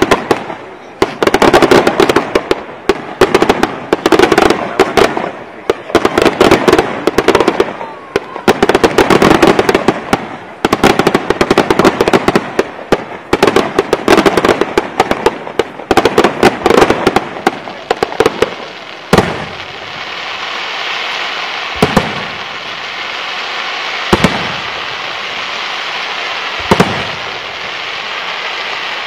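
Pellicani Fireworks aerial display: a dense barrage of rapid shell bursts and crackling for most of the first twenty seconds. It then thins to single loud bangs every two to three seconds over a steady hiss.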